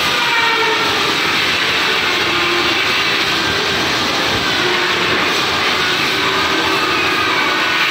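Belt polishing machine for stainless steel sinks running: a loud, steady whooshing noise with faint shifting squeals on top.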